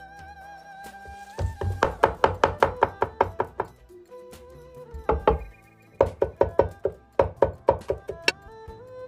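Cleaver chopping rapidly on a wooden cutting board, mincing garlic, in three runs of quick strokes at about six a second. Background music plays throughout.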